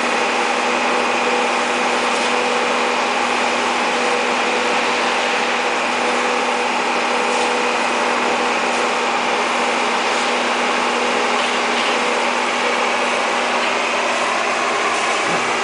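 Caterpillar E240B excavator's diesel engine running steadily at a constant pitch.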